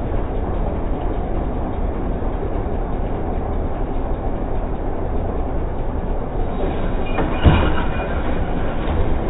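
Natural-gas garbage truck running while its McNeilus AutoReach automated side-loader arm lifts a trash cart and tips it over the hopper, a steady mechanical rumble. A single sharp bang about seven and a half seconds in.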